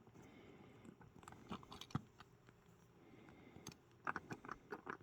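Small plastic scale-model truck parts being handled, giving faint, scattered clicks and taps, with a cluster of them near the end.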